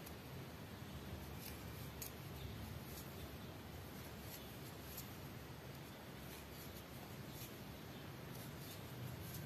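Faint, irregular soft ticks and rustling of a 2.0 mm crochet hook pulling baby yarn through loops, working single crochet along a foundation chain.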